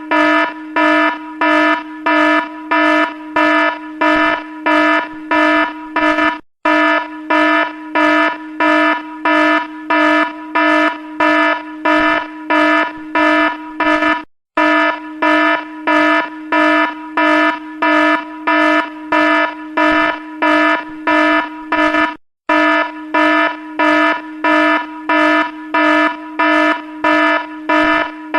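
Electronic evacuation alarm sounding a steady, buzzy tone in rapid on-off pulses, about two a second, with a brief break roughly every eight seconds.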